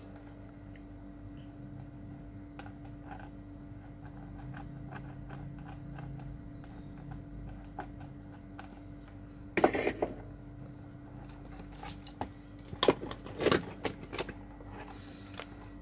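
Small scattered clicks and light clatter of tools and parts being handled on a workbench, over a steady electrical hum. There are a few louder knocks, one about ten seconds in and a short cluster about thirteen seconds in.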